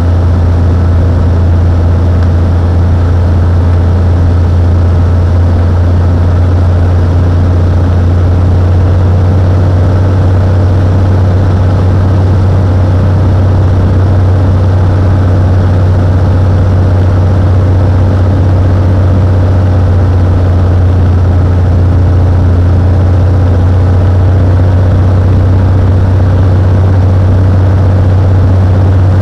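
Cessna 182's piston engine and propeller running steadily, a loud, constant low drone.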